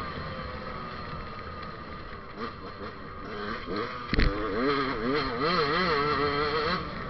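KTM dirt bike engine revving up and down as the throttle is worked over rough ground, running lower for the first few seconds. A sharp knock about four seconds in, then stronger rising and falling revs that drop away near the end.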